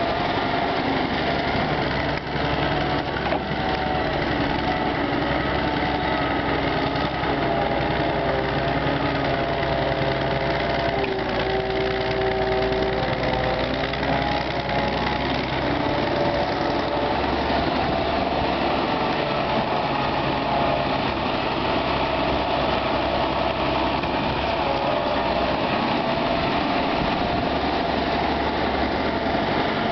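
Soviet EO-4121 hydraulic crawler excavator working: its diesel engine runs steadily under load, with a whine that shifts up and down in pitch as the boom and bucket dig and swing.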